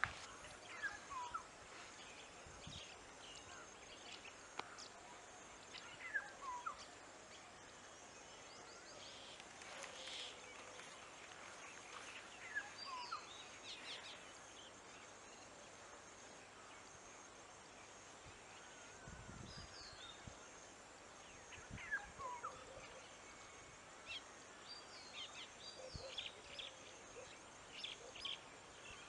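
Faint bird calls: a handful of short falling whistled notes spaced several seconds apart, with scattered higher chirps that grow busier near the end.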